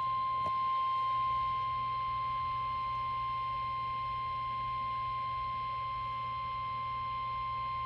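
Weather-alert warning tone: one long, steady, single-pitched beep at about 1 kHz, the NOAA Weather Radio 1050 Hz alarm tone that comes before a warning message. A faint low hum runs underneath.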